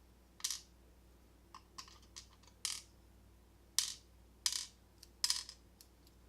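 Small key pins from a gutted deadbolt cylinder dropping out and clinking on a hard surface: about eight light metallic clicks at irregular intervals.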